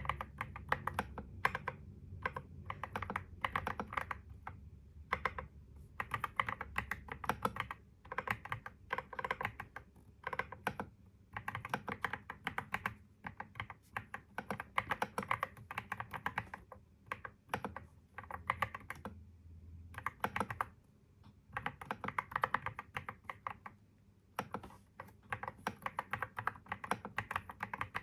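Computer keyboard typing in quick runs of keystrokes, broken by short pauses of about a second.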